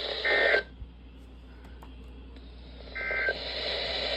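Two short Emergency Alert System digital data bursts from a NOAA Weather Radio broadcast, the end-of-message code closing the flash flood warning. One comes just after the start and one about three seconds in, over radio static that drops out for a couple of seconds between them.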